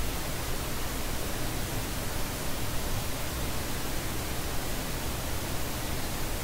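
Steady hiss of recording background noise, with no other sound.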